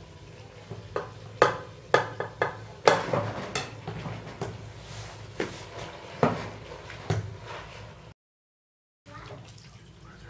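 Wooden spoon and plate knocking and scraping against a metal cooking pot as greens are pushed in and stirred: a run of sharp knocks and clinks, which cuts off suddenly about eight seconds in.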